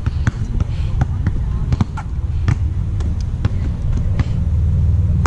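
Basketball bouncing on an outdoor hard court: an irregular series of sharp bounces as the ball is dribbled, over a steady low rumble.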